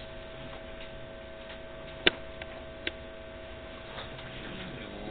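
Steady room hum with a faint steady tone, broken by a sharp click about two seconds in and a fainter click just under a second later: clicks at the laptop as the demo video is started.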